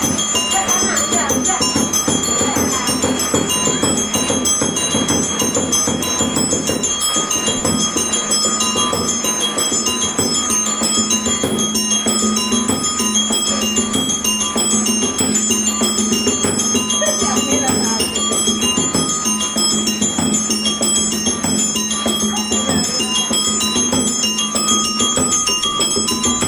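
Background music with a light, repeating chiming melody on bell-like mallet percussion, steady throughout.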